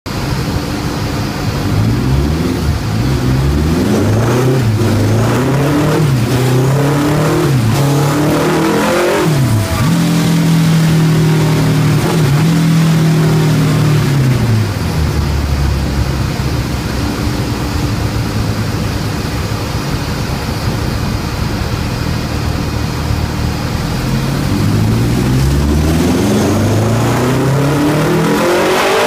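Honda X4's over-bored inline-four engine, with FCR carburettors and a titanium exhaust, running on a chassis dyno. It is blipped up and down for several seconds, held at a steady high speed for a few seconds, drops back to a low idle, then climbs steadily in revs near the end.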